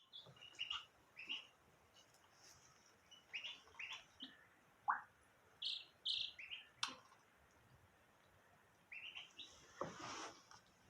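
Small birds chirping in short, high calls that come in scattered clusters, with a fuller, louder sound about ten seconds in.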